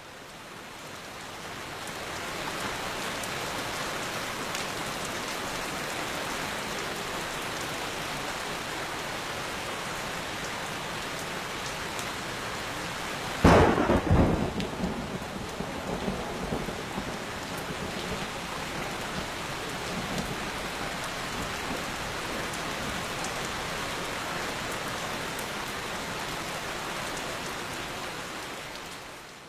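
Steady rain with a single sharp thunderclap about halfway through, whose rumble dies away over the next few seconds. The rain fades in at the start and out at the end.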